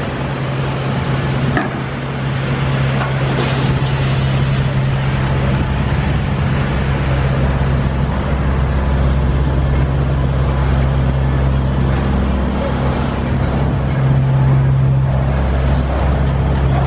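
Construction machinery engine running steadily, a low drone that builds slightly partway through, over a haze of site and traffic noise.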